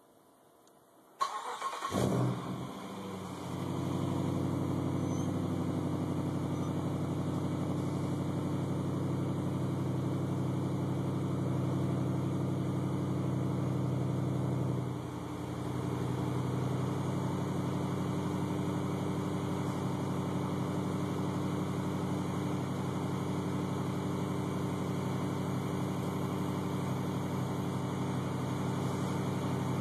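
2008 Jeep Grand Cherokee SRT8's 6.1-litre HEMI V8 is started about a second in, flares up briefly as it catches, then settles into a steady idle. It breathes through a Magnaflow muffler (part 12599) with the resonator deleted. The sound dips for a moment about halfway through before the idle steadies again.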